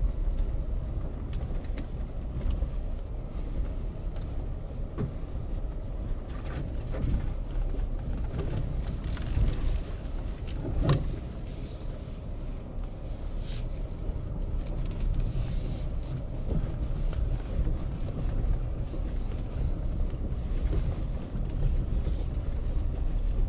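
Pickup truck driving on a rough dirt track, heard from inside the cab: a steady low rumble of engine and tyres, with scattered knocks and rattles.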